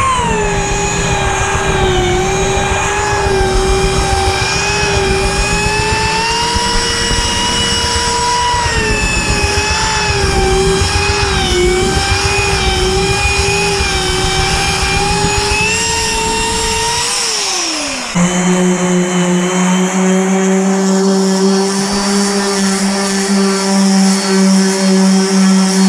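Electric orbital sanders running on a wooden top. The first sander gives a steady whine that wavers slightly in pitch, over a rough sanding noise. About 17 seconds in its pitch drops away, and a lower, steadier hum of a second sander takes over.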